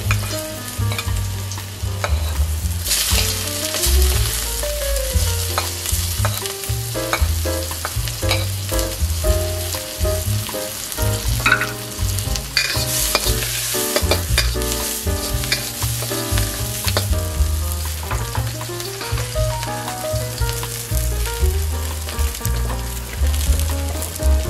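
Minced garlic and chopped onion sizzling as they sauté in a hot wok, with a metal wok spatula scraping and stirring against the pan in frequent short strokes.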